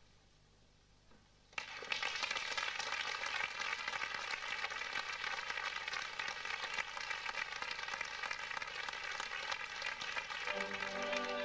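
Audience applause that starts suddenly about a second and a half in, after a short quiet moment, and carries on thick and steady; string music comes back in underneath it near the end.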